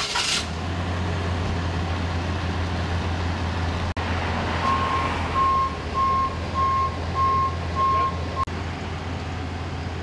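Tow truck engine idling with a steady low hum. About halfway through, a truck's reversing alarm beeps six times at a single pitch, evenly spaced at a bit under two beeps a second, and then cuts off.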